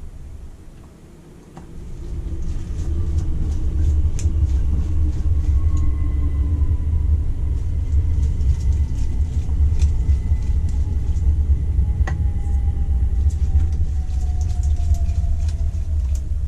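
Loud, steady low rumble with a faint whine that slowly falls in pitch, over scattered light clicks and taps.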